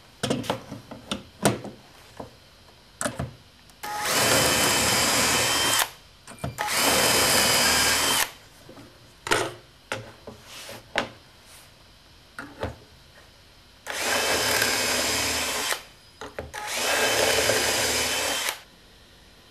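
Cordless drill boring holes through a plastic drilling template into a melamine-faced chipboard panel: four runs of about two seconds each, the motor whining steadily. Clicks and knocks come before and between the runs as the template and drill are handled.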